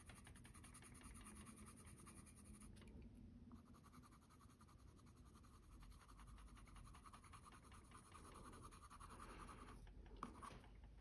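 Faint scratching of a Faber-Castell Polychromos colored pencil shading on toned tan mixed-media paper. It pauses briefly about three seconds in and again near the end.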